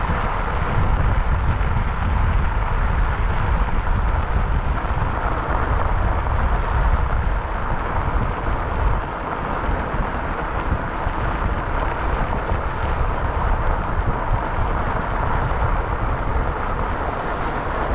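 Steady wind rumble buffeting the microphone of a handlebar-mounted camera on a moving bicycle, mixed with the hiss of bicycle tyres rolling over a gravel trail.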